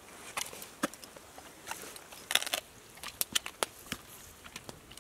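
Dog chewing raw grouse parts, bones included: a string of irregular crunches and sharp clicks.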